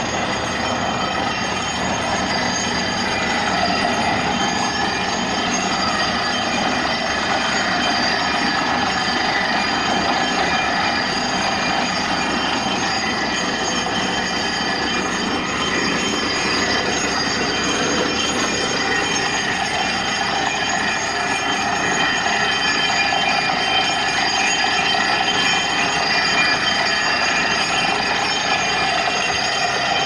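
Truck-mounted borewell drilling rig running steadily while drilling, with a loud rush of compressed air blowing rock dust out of the bore and a high whine over it.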